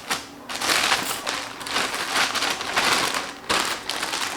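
Plastic packaging crinkling and rustling in irregular surges as it is handled and pulled open.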